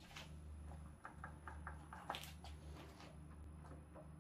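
Quiet low hum with a quick run of faint light clicks, about four a second, and one sharper click about two seconds in.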